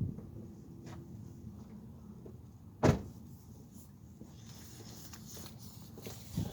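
Hands working plastic connectors and hose fittings under a car's hood: low handling and rubbing noise with a few faint clicks, one sharp snap or knock about three seconds in, then light rustling.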